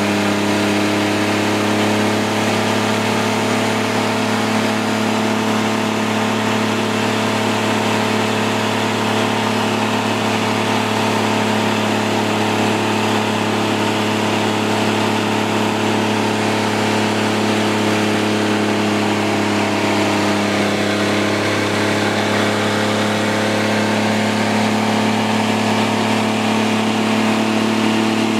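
Chevrolet S-10 pickup engine held at steady high revs during a stationary burnout, its tyres spinning in place under a constant hiss.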